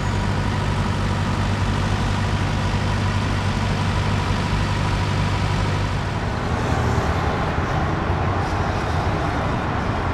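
Heavy diesel engine of a ground-drilling rig running at a steady low hum. About six seconds in it gives way to the broad, shifting wash of multi-lane road traffic.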